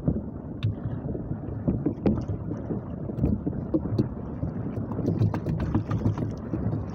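Wind buffeting the microphone and choppy sea water slapping against a small wooden outrigger boat, with a few scattered light knocks and clicks.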